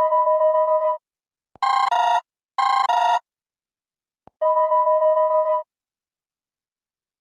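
Electronic Android phone ringtone: a held two-note electronic tone lasting about a second, two short stepped chirps, then the held tone again, with short silences between.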